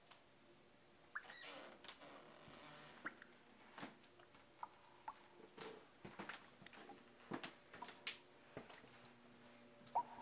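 Near silence: quiet room tone broken by scattered faint clicks and ticks, with a soft hiss about a second in.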